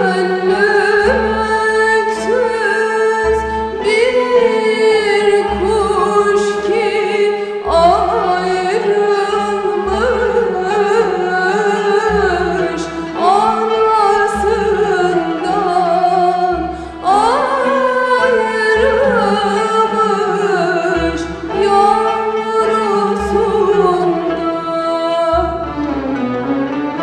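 A woman sings a Turkish song in an ornamented, wavering melody over instrumental accompaniment with low bass notes underneath. Her voice stops shortly before the end, leaving the instruments.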